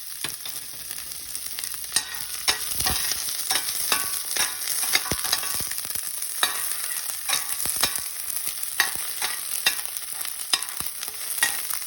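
Garlic, onion and ginger sizzling in hot oil in a frying pan, with a utensil stirring and knocking against the pan in irregular clicks.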